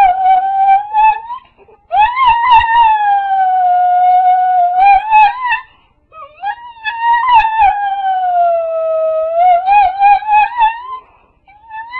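A dog howling in three long wails, each sliding slowly down in pitch, mimicking a crying baby.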